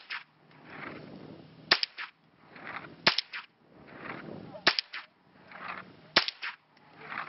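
Four shots from a Ruger 10/22 semi-automatic .22 rimfire rifle, sharp cracks fired about one and a half seconds apart, with the rifle held in a shooting rest.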